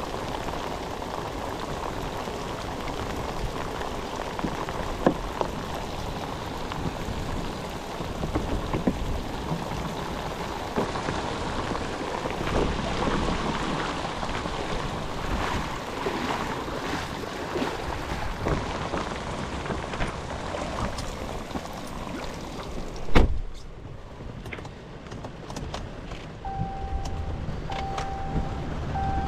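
Steady rain falling, with many single drops ticking close by. A single sharp knock comes about 23 seconds in, and near the end a short beep repeats several times.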